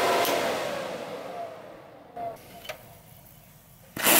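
Benjamin ReCharge PCP compressor's cooling fan being switched off and winding down, its whir fading over about three seconds with a slowly falling tone and a couple of small clicks. Near the end a loud hiss of high-pressure air starts suddenly as a valve on the compressor is opened to bleed the line.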